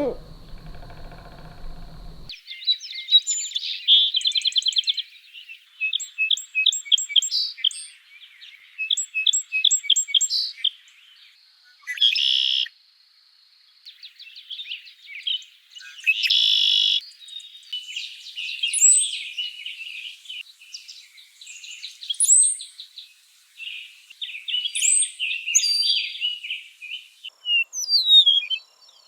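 A songbird singing a long, varied series of quick high notes, trills and chattering phrases, broken by short pauses.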